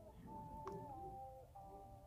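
Faint background music of held notes that change pitch every half second or so.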